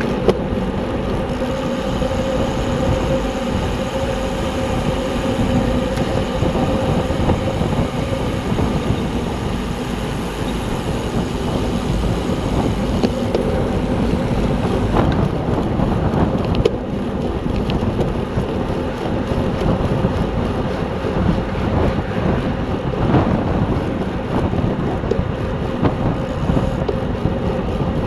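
Steady rush of wind over the microphone of a camera on a racing bicycle at speed, with a faint steady hum underneath that fades out about halfway.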